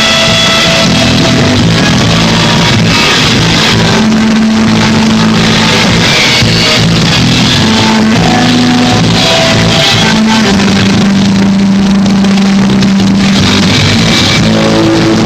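Loud, dense instrumental rock on electric guitar, with long held low notes underneath.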